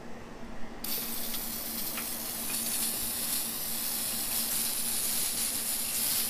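Engine degreaser sprayed from an aerosol can onto an engine block: a steady hiss that starts suddenly about a second in and keeps going.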